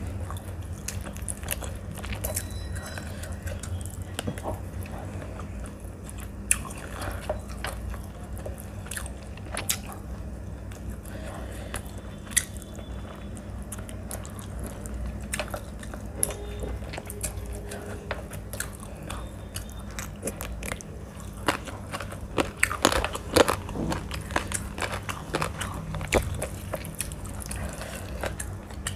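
Close-miked chewing and wet mouth sounds of a person eating rice and chicken curry by hand, with squelches of fingers mixing rice into the gravy, as a string of short clicks that gets denser and louder near the end. A steady low hum runs underneath.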